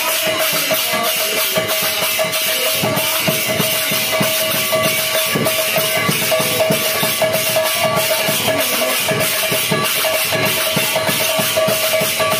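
Devotional kirtan percussion: a hand-played barrel drum beating fast under a steady clash of small brass hand cymbals, with a note held throughout. The drumming grows busier about three seconds in.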